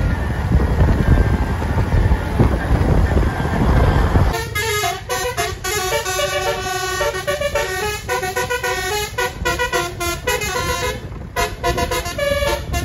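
A loud low rumble for about four seconds, then a bus's Basuri telolet multi-tone air horn plays a melody of short notes stepping up and down in pitch.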